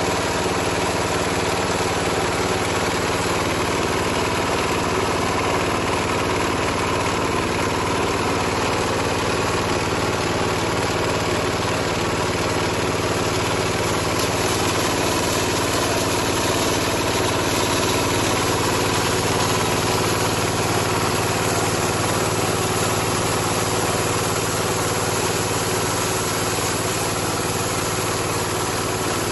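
Small single-cylinder 7 hp diesel engine running steadily, belt-driving a hammer mill that is grinding dry animal manure. The engine and the mill's rotor make one continuous, unvarying mechanical din.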